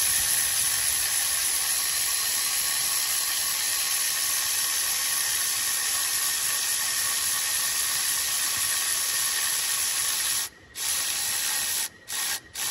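Aerosol can of brake cleaner spraying in one long, steady, high hiss. It stops briefly about ten and a half seconds in, then comes back as a few short sprays near the end.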